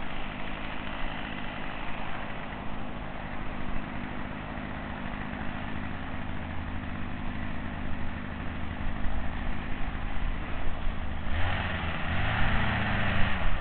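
Chainsaw's two-stroke engine running at a steady idle, growing louder about eleven seconds in.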